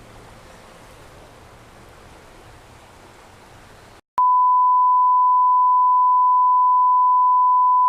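A faint steady background hiss, then, about four seconds in, a loud continuous single-pitch beep tone near 1 kHz that holds steady to the end: an edited-in bleep.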